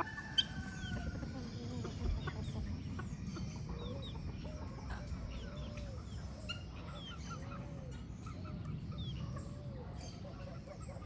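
Chickens clucking repeatedly, with short high chirps scattered throughout and one drawn-out falling call at the start.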